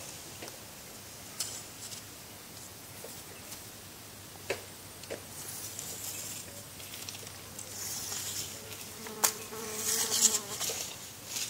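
An insect buzzing close by, loudest and fullest toward the end. A few sharp clicks and knocks come from a long telescopic fishing rod being extended and handled; the sharpest is about nine seconds in.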